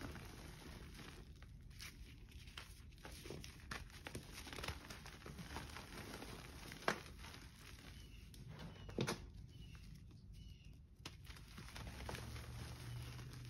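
Hands crushing and crumbling soft chunks of gym chalk into powder: faint crumbly crunching and crackling, with a couple of sharper cracks about seven and nine seconds in.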